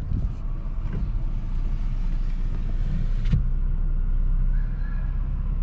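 Car engine and road rumble heard from inside the cabin, a steady low drone, with a single sharp knock a little over three seconds in.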